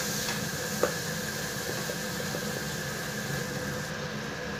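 Spice masala frying in oil in a pressure-cooker pot, a steady low sizzle and bubbling over a faint steady hum, with a light spatula tap about a second in.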